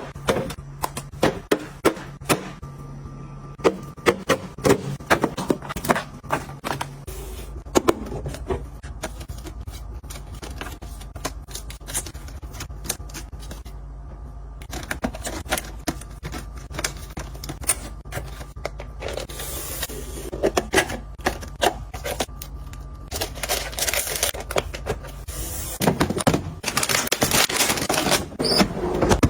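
Kitchen items being handled, set down and arranged: a run of quick clicks, taps and light scrapes. A low steady hum comes in about a quarter of the way through and stops near the end.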